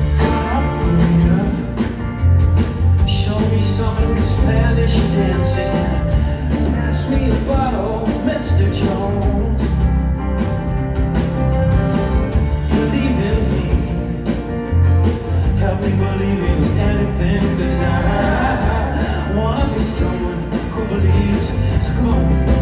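Live band playing a mid-tempo rock song on acoustic guitars and drums, with a lead voice singing through parts of it.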